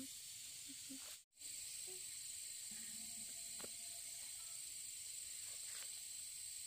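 Steady high-pitched insect drone, as from crickets or cicadas, running without a break except for a short dropout about a second in.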